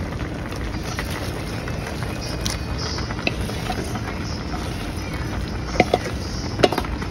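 Steady hiss and rumble of a stovetop pan cooking as sliced cabbage, carrots and snow peas are added over the noodles. A few sharp knocks near the end.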